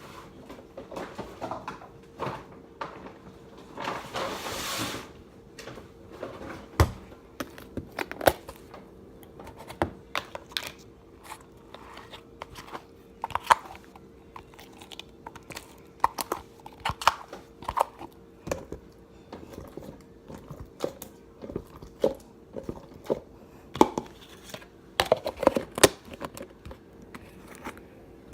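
Slime being squished and kneaded by hand, giving off irregular sticky pops and crackles, with a short hiss about four seconds in.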